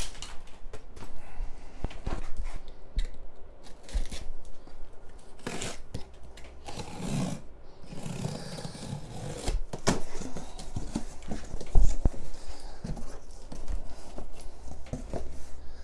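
Cardboard shipping box being opened: packing tape slit and torn, cardboard flaps scraping and rustling, with scattered clicks and knocks. There are longer rasping tears around the middle, and the loudest knock comes near 12 seconds in.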